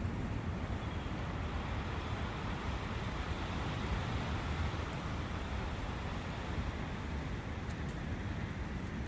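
A forest brook running: a steady rushing of water with a low rumble underneath.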